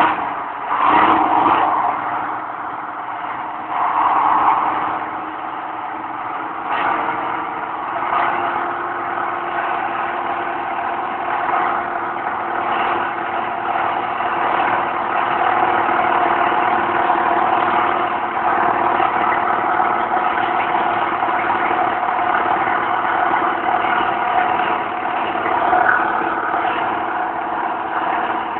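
International Harvester 955 tractor's diesel engine running, with a few loud surges in the first seconds and then settling into a steady idle.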